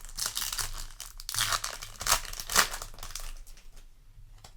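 Foil booster-pack wrapper crinkling as it is handled, with a couple of louder rustles about two seconds in, dying down near the end.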